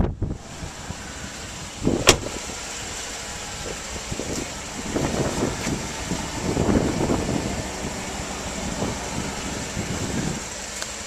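2008 Chevrolet Avalanche's V8 idling steadily. A single sharp click comes about two seconds in, and uneven swells of noise rise over the idle in the middle.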